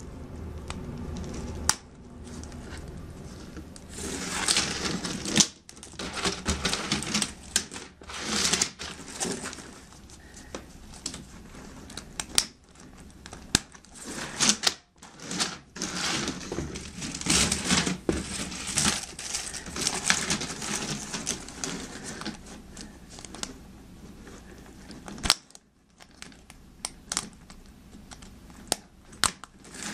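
Flexible plastic toy race-track pieces being handled and pushed together at their ends: irregular plastic clicks and snaps mixed with rustling and rattling.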